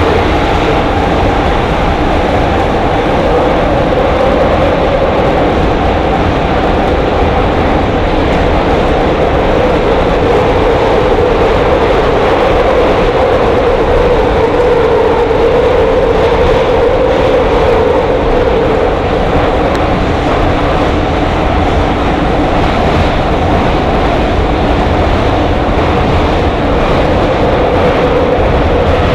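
Inside a Soviet-built Ev3 (81-717-type) metro car running through a tunnel: steady loud wheel-and-rail running noise with a humming tone that swells slightly midway.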